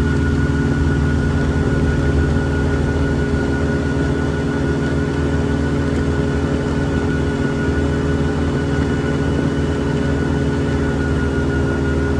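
CGS Hawk ultralight aircraft's engine and propeller running steadily, a constant drone with a thin high whine above it.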